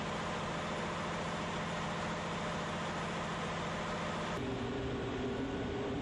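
Heavy construction machinery running steadily, a low engine drone with a few held tones. About four seconds in it changes abruptly to a different steady engine sound.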